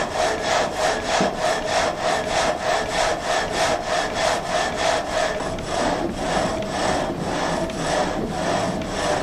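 Water-driven reciprocating frame saw cutting a log, the blade rasping through the wood on each rise and fall of the saw gate, at about two to three strokes a second.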